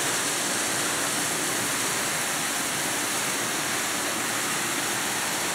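Small decorative waterfall running: a steady rush of falling water.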